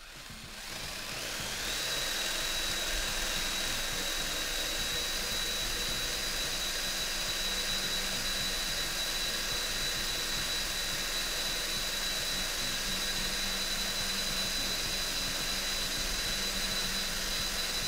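Cordless drill spinning up over about two seconds, then running steadily with a high, even whine as it turns the Simson moped's wheel to drive the Koso speedometer to about 20 km/h, the drill's top speed.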